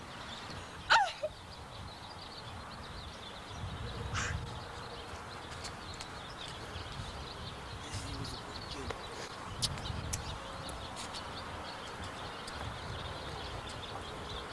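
Outdoor ambience with wind rumbling on a camcorder microphone, and a brief falling vocal cry about a second in.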